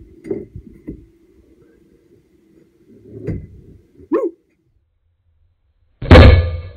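Four short, barking calls spread over the first four seconds, then a single rifle shot about six seconds in, by far the loudest sound, with a ringing tail.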